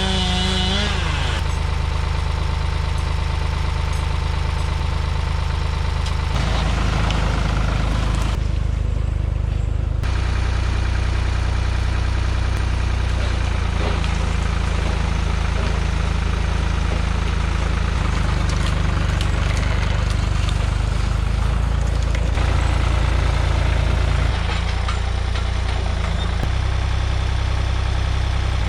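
An engine running steadily, its pitch and tone shifting abruptly every few seconds.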